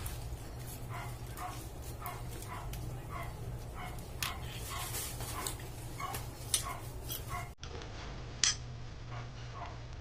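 Short animal calls repeating steadily, about two a second, over a low steady hum, with a few sharp clicks from copper cord wires being twisted and handled.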